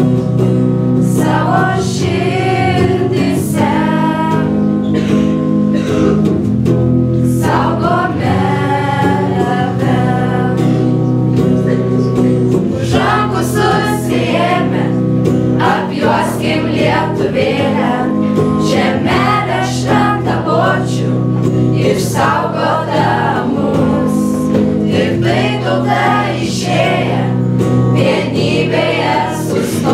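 A group of school students, boys and girls, singing a song together with electric guitar accompaniment and sustained held chords underneath.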